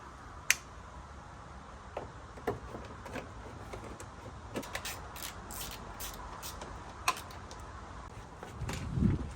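Scattered sharp clicks and taps of hand tools and parts on the car's engine as the radiator hoses are being undone, the loudest about half a second in and again about seven seconds in, with a low thump near the end.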